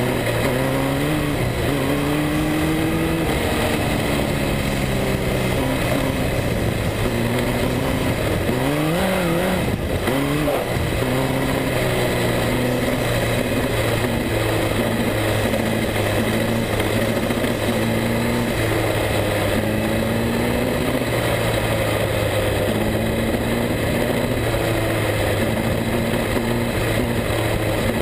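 Speedway midget car engine running hard, heard from the cockpit as the car laps a dirt oval. Its pitch rises and falls again and again, with a sharp dip and climb back about nine to ten seconds in.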